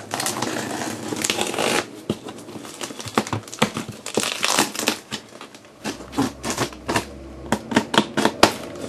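Craft knife slitting the packing tape on a cardboard shipping box, with plastic crinkling and cardboard scraping: one long continuous cut at the start, then a run of short scratches and crackles as the blade works along the seam.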